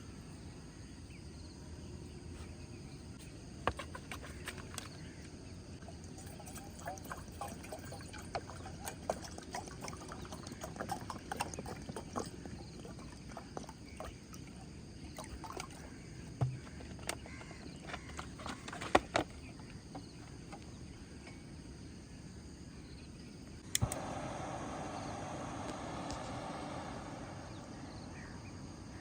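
Water being poured into a cooking pot, a rushing pour that starts suddenly about three-quarters of the way through and eases off near the end. Before it come scattered clicks and knocks of handling.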